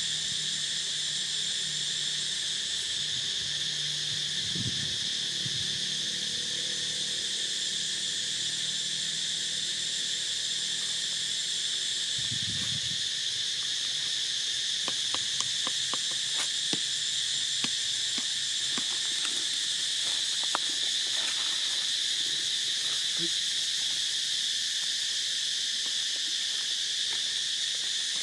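A steady, high-pitched insect chorus drones on without a break. About halfway through comes a scatter of small sharp clicks.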